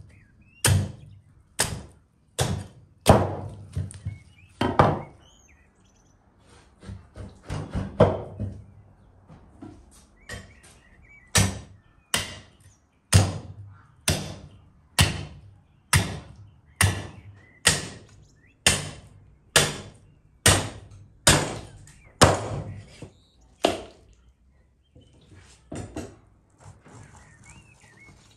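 Meat cleaver chopping through a raw rib rack onto a wooden chopping board: a long run of sharp strikes, irregular at first, then a steady one about every second through the middle, ending in a few light taps.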